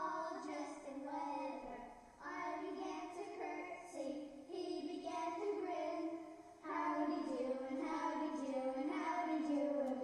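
A voice singing a song with music, in phrases a few seconds long with short pauses between them.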